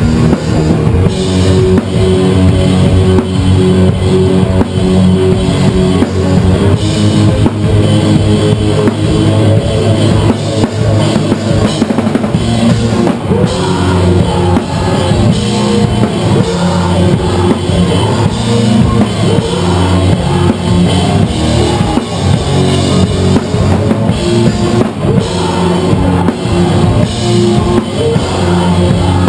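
Pop-punk band playing live: a drum kit with a driving bass drum and crashing cymbals up front, over electric guitars and bass, loud and continuous.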